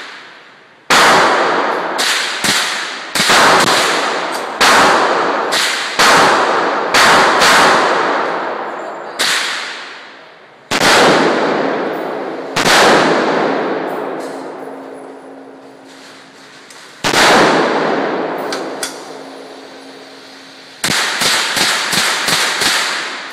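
Rifle shots fired one after another at an uneven pace, each followed by a long echoing decay, ending in a quick string of about six shots.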